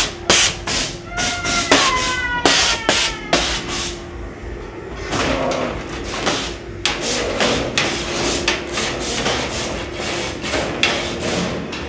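Haunted-house attraction's loud, irregular bangs and clanks, coming in quick clusters over a steady low hum, with a few falling eerie tones about a second in.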